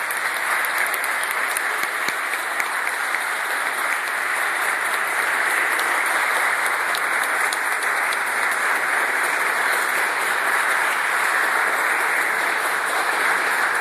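An audience applauding: a steady round of many hands clapping.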